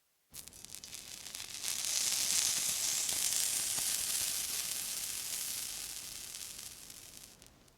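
Water sizzling: a crackling hiss that starts suddenly, swells about a second and a half in, then slowly dies away and stops just before the end.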